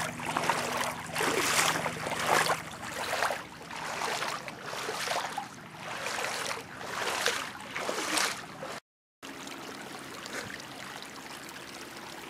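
Boots wading through floodwater below knee depth, a splash and swish with each step about once a second. After a brief cut about two-thirds in, there is a steady rush of muddy floodwater flowing into a flooded rice paddy.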